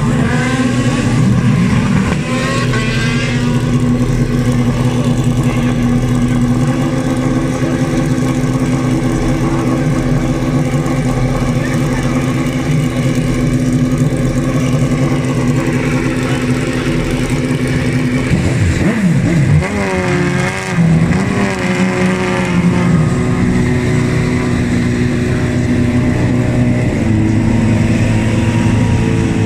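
Open-wheel racing car engines idling loudly and steadily, with a short throttle blip that sweeps the pitch up and back down about two-thirds of the way in.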